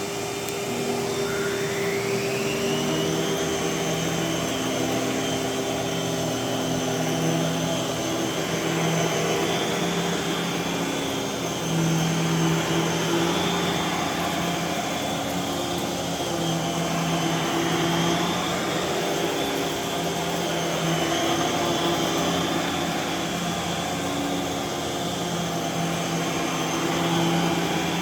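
Miele Salsa upright vacuum cleaner running: its motor whine rises in pitch over the first few seconds, then holds steady.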